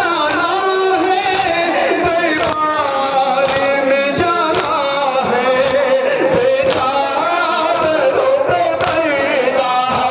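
A man chanting a nauha, the Shia Muharram mourning lament, through a microphone, in long held notes that bend up and down.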